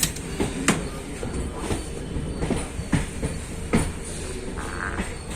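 Train wheels rolling over rail joints and points, giving sharp, irregularly spaced clacks over a steady running rumble.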